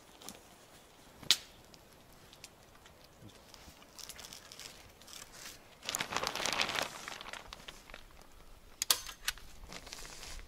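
Clear plastic sheeting crinkling as it is pulled taut over a wooden pole tipi frame, loudest a little past halfway. Sharp clicks of a staple gun stand out: one about a second in and two close together near the end.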